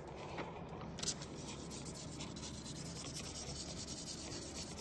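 Continuous soft rubbing and scratching.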